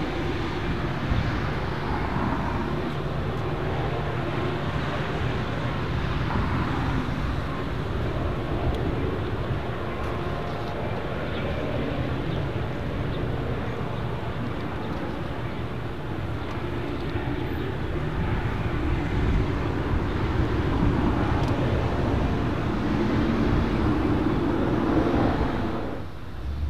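A train passing close by: a steady rumble of wheels on the track, with a low drone running through it.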